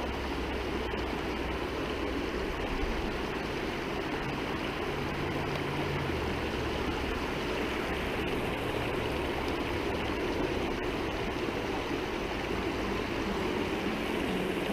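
Small mountain stream rushing steadily over rocks: a constant, even flow of water.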